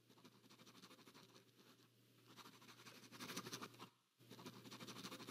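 Pen writing on paper: quiet, rapid scratching strokes that grow louder in the second half, with a brief break about four seconds in. A faint steady low hum lies underneath.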